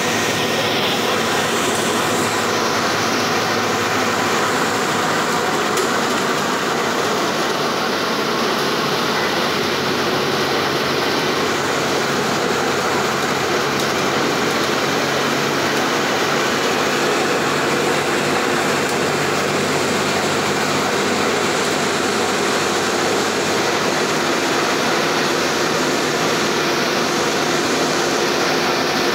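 Steady drone of a city bus's diesel engine with tyre hiss on a wet road, heard from inside the cabin while cruising along the highway.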